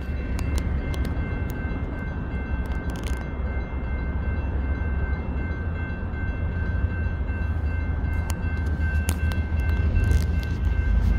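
Low rumble of an approaching BNSF freight train, growing louder near the end, over a steady high ringing tone from the activated grade-crossing signals.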